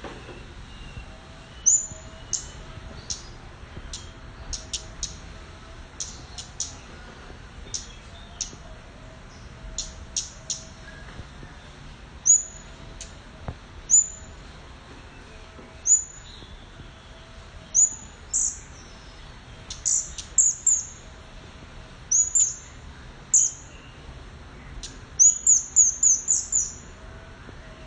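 Sooty-headed bulbul calling: short, sharp high chirps at irregular intervals, with a quick run of chirps near the end.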